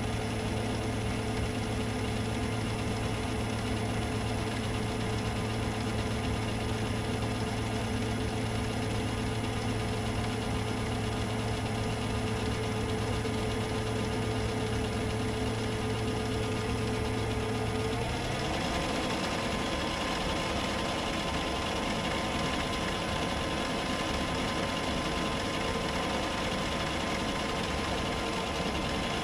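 Myford lathe running steadily in reverse with the half nut engaged, the leadscrew driving the carriage through a light cut. It makes an even mechanical hum, and about two-thirds of the way through its pitch changes to a different, higher set of notes.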